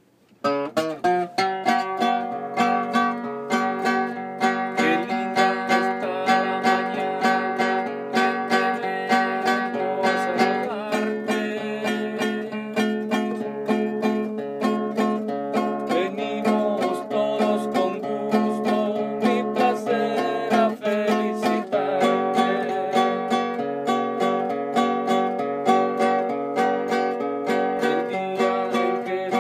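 Acoustic guitar played solo: a fast, continuous stream of strummed and plucked notes, starting about half a second in, with a brief break about two-thirds of the way through.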